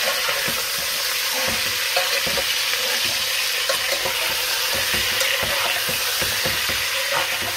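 Raw chicken pieces sizzling steadily as they fry in hot oil in a metal pot, with a metal spoon knocking and scraping against the pot as they are stirred. This is the first fry, meant to cook off the chicken's water.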